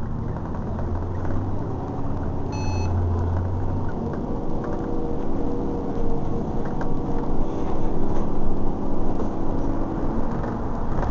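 London bus's engine and road noise heard from inside the bus, running steadily and growing louder as it gathers speed down into an underpass. A brief electronic beep sounds about two and a half seconds in.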